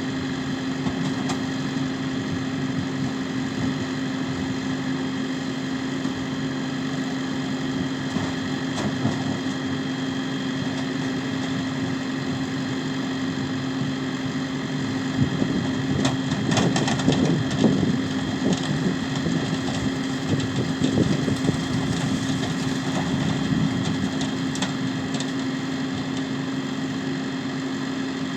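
New Holland T6 tractor's engine running steadily, with a stretch of louder irregular rumbling and rattling in the middle.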